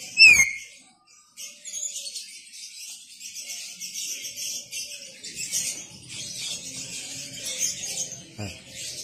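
Caged common hill myna giving one loud, sharp whistle that falls in pitch right at the start, followed by a steady high-pitched chirping background and a single knock near the end.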